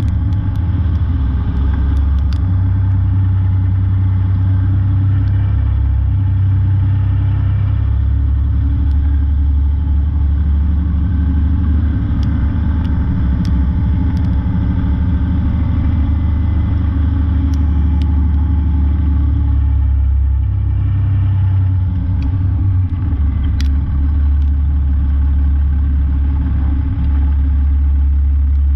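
Peterbilt semi truck's diesel engine running steadily with a low rumble, a few faint clicks on top.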